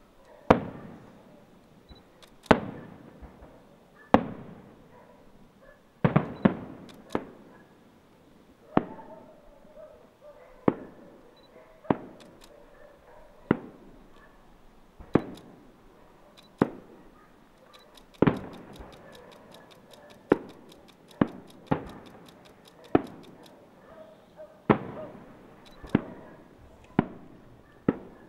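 Aerial firework shells bursting, about twenty sharp bangs one every second or two, each trailing off in an echo. A quick run of faint crackles a little past the middle.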